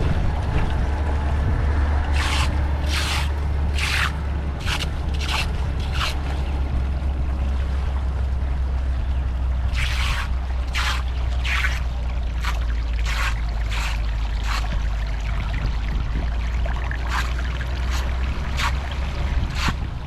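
A hand tool scraping debris on a clogged storm drain in groups of short, sharp strokes, roughly one a second, with pauses between the groups. Under it runs a steady low rumble.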